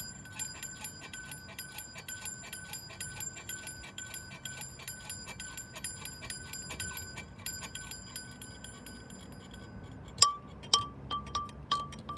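A bell with a high ringing tone struck rapidly, about four strokes a second; about ten seconds in it stops and a terracotta flower-pot bell takes over, swinging so its clapper strikes a lower, louder clink a few times a second.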